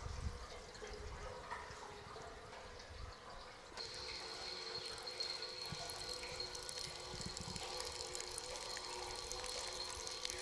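Water running and splashing as a steel heating buffer tank is flushed out, with dirty water draining in a thin stream from its bottom outlet onto grass. A faint steady high whine joins in about four seconds in.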